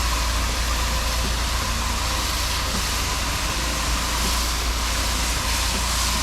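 Pressure washer running steadily while its wand sprays a downstreamed chlorine (SH) mix: an even hiss of spray over a steady low engine rumble.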